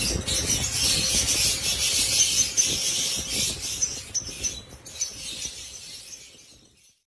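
Dense, high chattering and chirping of many caged birds, such as lovebirds in an aviary, mixed with low rubbing handling noise close to the microphone. It fades away near the end.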